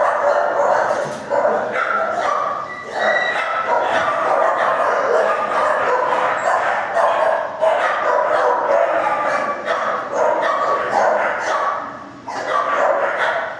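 Many shelter dogs barking and yipping at once, a continuous overlapping din that dips briefly near the end.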